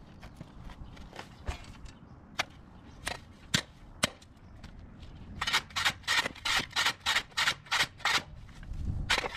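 Shovel blade scraping and chopping at overgrown grass along the edge of hard, packed ground. At first the strikes come one at a time, then about five seconds in comes a quick run of about a dozen sharp chops, roughly four a second.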